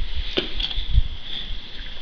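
Gloved hands fitting a shielding-gas quick-connect coupling onto the welder's brass gas inlet. There is scraping and handling, low thumps near the start and about a second in, and a short light metallic tick about half a second in.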